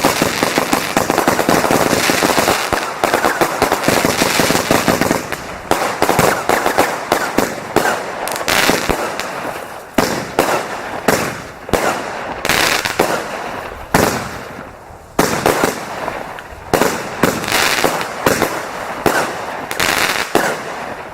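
Fireworks going off: a dense, rapid run of bangs and crackling for about the first five seconds, then separate bangs about once or twice a second.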